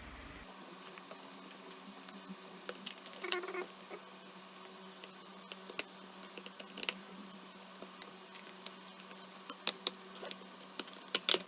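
Plastic back casing of a Lenovo IdeaPad 120S-11 laptop being pried off: scattered clicks as the snap clips release, with a quick run of louder snaps near the end as the cover comes free.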